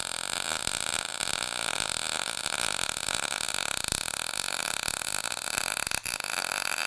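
Wire-feed welder arc running continuously while laying a bead on a steel alternator bracket: a steady, dense crackle and sizzle, broken for a moment just after six seconds.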